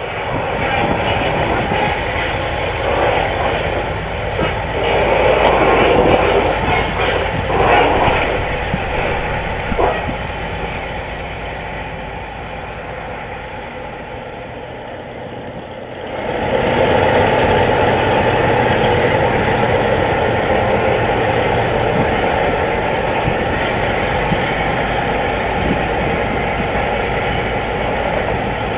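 Whitcomb 65-ton diesel-electric locomotive running, a steady diesel drone with rail and mechanical noise. The sound abruptly becomes louder about sixteen seconds in.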